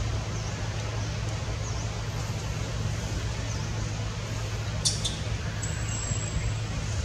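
Steady outdoor background noise, a hiss over a low hum, with faint short chirps and one sharp click about five seconds in.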